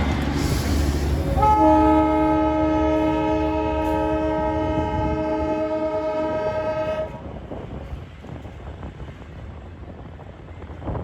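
Darjeeling Himalayan Railway toy train locomotive sounding its whistle: one held chord of several steady tones, starting about a second and a half in and cutting off at about seven seconds, over a steady rushing noise.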